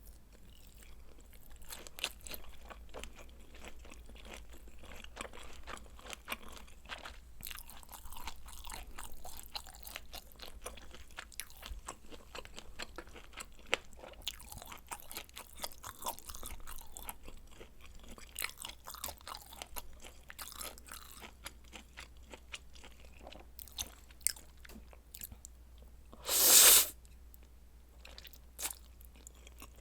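A person chewing and biting a meal of spicy noodles and kielbasa sausage, with many small crisp crunches throughout. Near the end, one loud noise of about half a second stands out.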